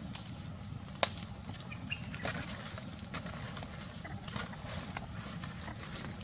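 Wood fire of dry branches crackling, with scattered sharp knocks and pops as the burning sticks are poked and shifted with a long stick; one loud snap about a second in, over a steady high hiss.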